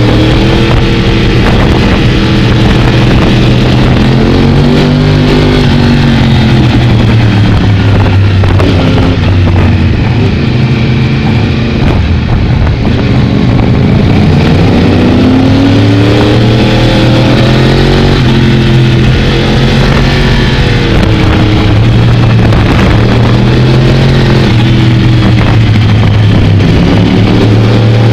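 Sport motorcycle engine heard from on board, revs rising and falling again and again as the bike accelerates and slows through the bends.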